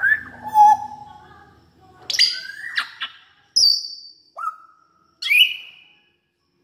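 African grey parrot giving a string of short whistles and calls with gaps between them, several sliding up in pitch.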